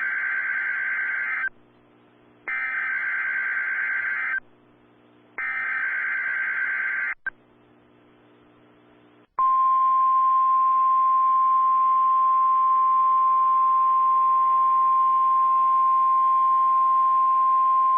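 NOAA Weather Radio Emergency Alert System opening: three bursts of the SAME digital header, a shrill warbling data screech about two seconds each with a one-second gap between them, carrying the coded alert to weather radio receivers. After a short pause comes the single steady 1050 Hz warning alarm tone, held for about nine seconds.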